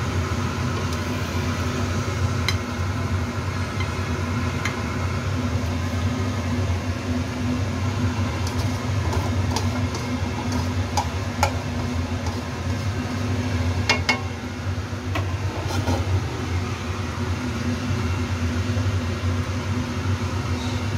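Steady low hum of a kitchen fan. Over it come scattered clicks and scrapes of a spatula against a wok as braised fish is lifted onto a plate and the sauce is poured over it.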